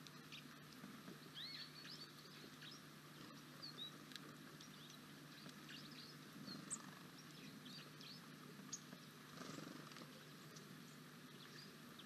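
Faint crunching and rustling from a Eurasian red squirrel chewing seeds in a wicker feeder basket close to the microphone, loudest twice in the middle of the clip. Small birds chirp briefly and scattered in the background over a steady low hum.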